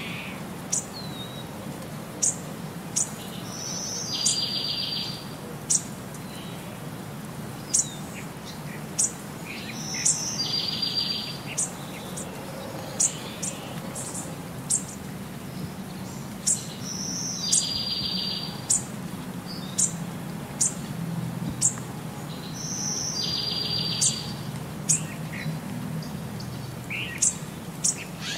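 Birds singing: short, sharp high chirps with a buzzy trill lasting about a second that comes back at even spacing, about every six to seven seconds, over a steady low hum.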